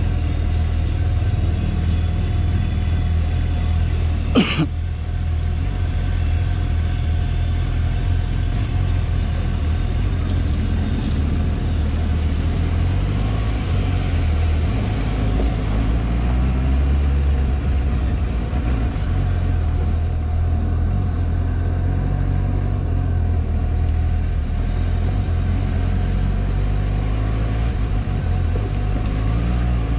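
Suzuki GSX-S750's inline-four engine running at low speed, a steady low rumble heard from a helmet chin mount, with one sharp knock about four and a half seconds in.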